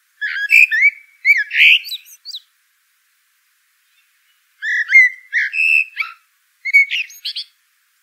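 A songbird singing three phrases of quick, varied whistled and slurred notes: a phrase about two seconds long at the start, a second one from about the middle, and a shorter one near the end.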